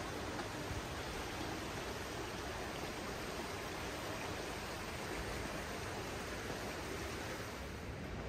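Steady rush of the Ganges' fast-flowing water, an even noise with no break.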